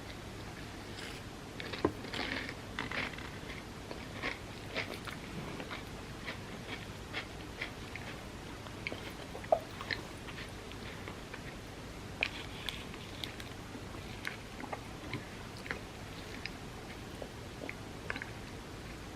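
A person bites into a soft baked cookie cup layered with chocolate wafers about two seconds in, then chews it with a run of small, irregular crisp crunches and mouth clicks.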